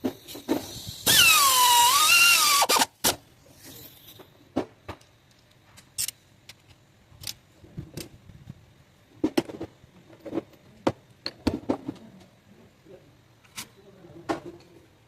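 A loud wavering squeal lasting under two seconds about a second in, followed by scattered clicks and knocks of hand tools against engine parts.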